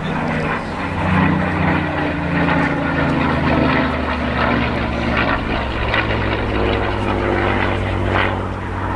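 Messerschmitt Bf109G-4's Daimler-Benz DB605 inverted V12 engine and propeller in flight. The engine note rises and then falls in pitch over the first few seconds, then holds steady.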